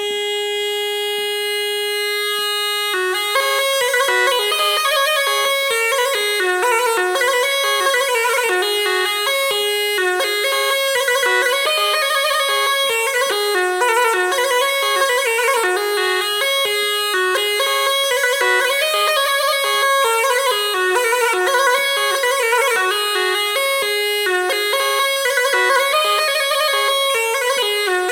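Bagpipe music, in the style of a Black Sea tulum: one held note for about three seconds, then a fast, ornamented dance melody with no drone underneath.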